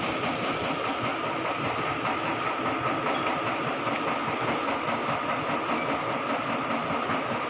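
Dewatering pump at a paddy-field pump house running steadily, an even mechanical drone that holds level throughout.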